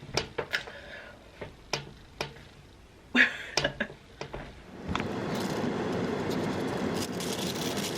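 A string of sharp clicks and knocks from things being handled, then, from about five seconds in, a sudden switch to a steady rushing noise of a car driving.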